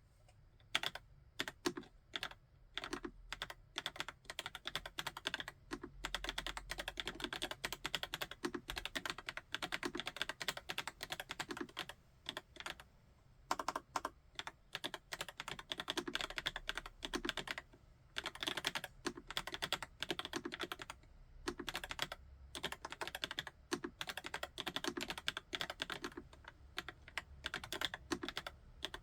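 Steady fast typing on a YUNZII QL75 typewriter-style mechanical keyboard with Cocoa Cream V2 switches: a dense run of key clacks, broken by a few brief pauses.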